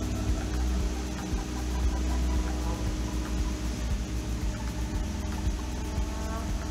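Boat travel lift running as it raises a sailboat: a steady low engine rumble with a hiss over it.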